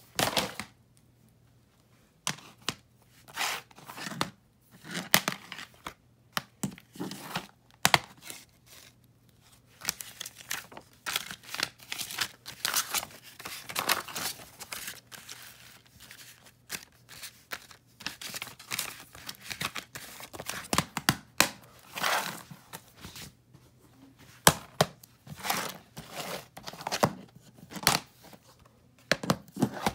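Plastic DVD cases being handled, opened and closed: scattered sharp clicks and knocks, with the rustle of paper inserts being leafed through.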